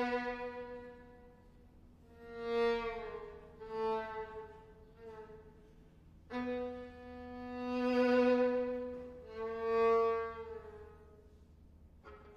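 Violin playing slow, sustained low bowed notes, each swelling up and fading away, with short quiet gaps between them. The last note dies away about a second before the end.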